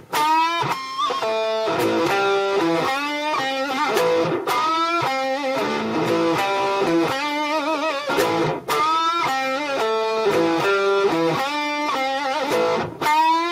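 Parker Fly electric guitar played through a Line 6 Micro Spider amp on its high-gain "Insane" channel: a distorted riff of single notes, some with vibrato. The phrase repeats about every four seconds, with a short break between passes.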